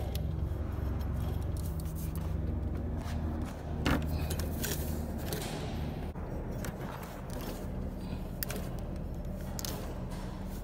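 Alternator pulley of a Honda Odyssey 3.5 V6 spun by hand with the accessory belt off, its bearing making a rough running noise as it turns: the noise the mechanic picks out as coming from the alternator. A few knocks sound, the clearest about four seconds in, over a steady low hum.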